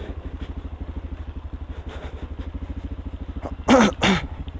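Crossfire motorcycle engine running steadily at low revs with an even, rapid exhaust pulse. Two short, loud pitched calls break in about three and a half seconds in.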